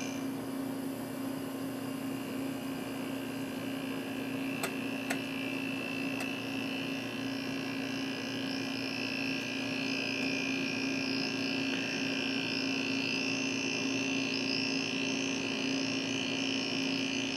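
Salvaged 1970s refrigerator compressor running with a steady hum, getting a little louder as it pumps a high-pressure hydraulic hose up toward 500 psi.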